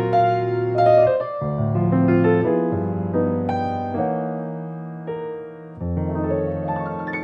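Background piano music: sustained chords that change every second or two, with a higher melody over them.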